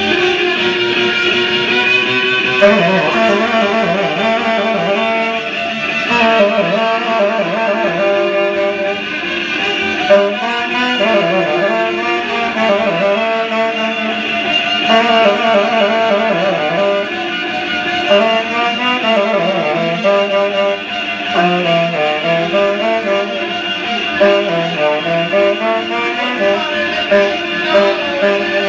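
A saxophone and a violin playing together live, the saxophone carrying wavering melodic lines over the violin's accompaniment.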